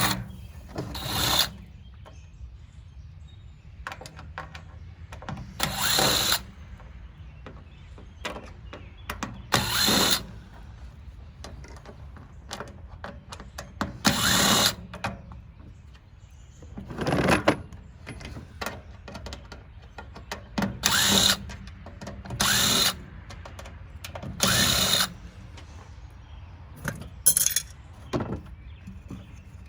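Power drill run in short spurts of about a second, nine or so times, with quieter handling noises between.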